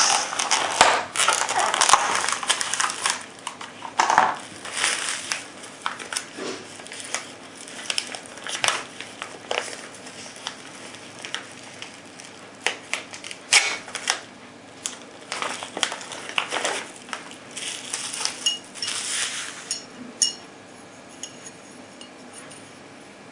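Clear plastic blister packaging and bubble wrap being pried open and handled: crinkling and crackling with many sharp clicks. The handling is busiest in the first few seconds and thins out toward the end.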